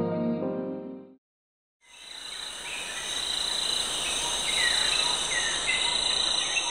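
Piano music fades out in the first second, followed by a brief silence. Then a steady, high-pitched insect chorus, cricket-like, begins and carries on, with short chirps recurring about once a second over it.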